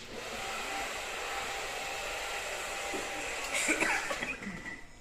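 Electric hair clippers running with a steady buzz while cutting a toddler's hair, growing briefly louder about three and a half seconds in and stopping near the end.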